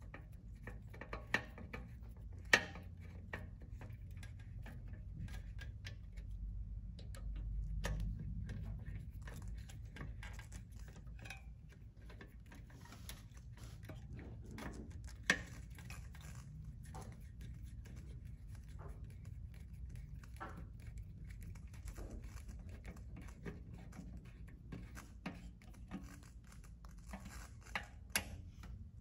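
Scattered small metal clicks and taps of a hand tool and fingers working on a mechanical disc brake caliper as it is fitted and adjusted, with a few sharper ticks standing out.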